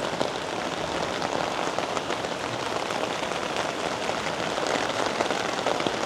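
Steady rain falling on the garden, a dense even hiss with many small drops pattering on leaves and surfaces.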